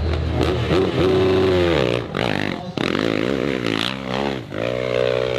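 Motorcycle engine revving, its pitch dropping about two seconds in and then rising and falling repeatedly with the throttle.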